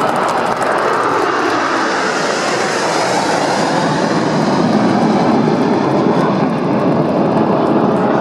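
Formation of Aermacchi MB-339 jet trainers flying past, a steady jet engine rush that swells somewhat louder about halfway through.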